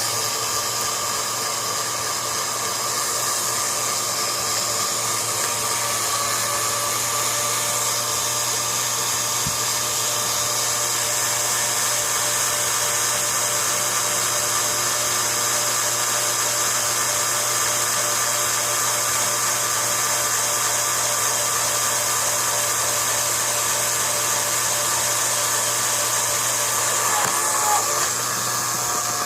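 Cordless-drill motor and gearbox driving a home-made mini lathe, running steadily at constant speed with a high whine while a small brass lock pin is drilled. Near the end the pitch briefly wavers and a new steady tone sets in.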